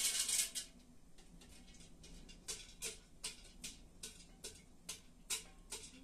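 Liquid poured from a plastic cup into a steel pot for about half a second, then a spoon knocking against the inside of the steel pot about two or three times a second as it stirs.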